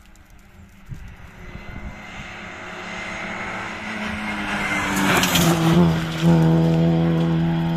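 Rally car engine approaching at speed, growing louder and loudest about five to six seconds in. About six seconds in, a steady held musical tone sets in abruptly.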